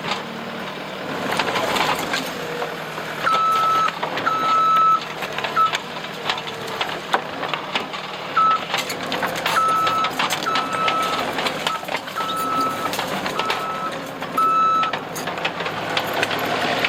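Case TR270 tracked skid steer working, its diesel engine running under steady noise while the backup alarm beeps in runs as the machine reverses, a run of beeps about three seconds in and another longer run from about eight seconds in. Scattered knocks and clatter of rocks and debris being scraped out come through over it.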